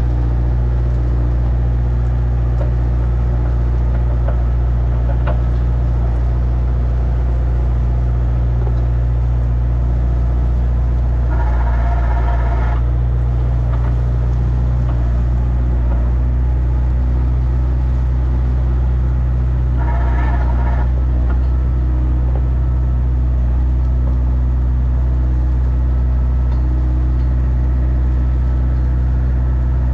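Motor grader's diesel engine running steadily at constant speed while spreading stone. A brief higher-pitched tone rises over it twice, about a third and two-thirds of the way through.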